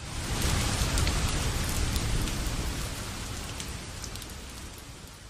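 Rain falling with scattered drop clicks, under a low rumble of thunder that swells in at the start and fades away over the next few seconds.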